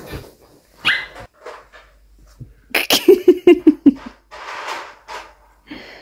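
A dog yapping: a quick run of about eight short, high barks about three seconds in, with a few softer yelps before it.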